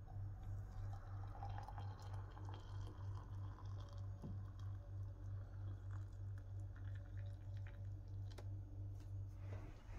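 Water pouring in a steady stream from a stainless-steel electric kettle into a ceramic mug, filling it over drinking chocolate powder, with a low steady hum underneath.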